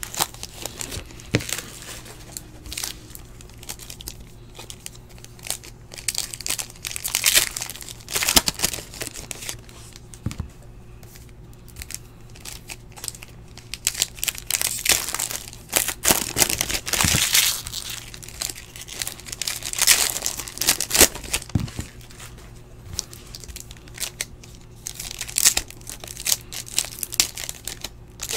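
Foil wrappers of Panini Illusions football card packs crinkling and tearing as the packs are ripped open and handled, in irregular bursts a second or more apart.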